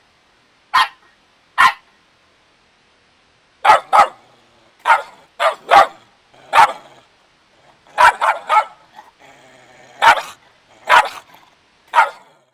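Puppy barking: a string of short, high, yappy barks at uneven intervals, some in quick pairs and triples, with a pause of about two seconds near the start.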